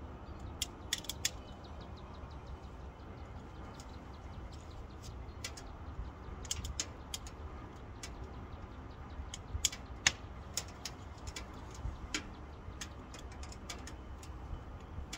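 Wood fire crackling in the firebox of a Pomoly Dweller Max 2.0 tent stove on its first burn, irregular sharp pops and snaps, the loudest about ten seconds in, over a low steady rumble.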